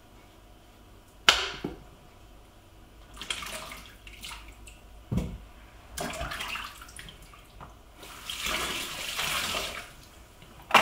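Peeled potatoes being rinsed and handled in water in a kitchen sink: a sharp knock about a second in, splashing and light clunks, then the tap running for about two seconds near the end.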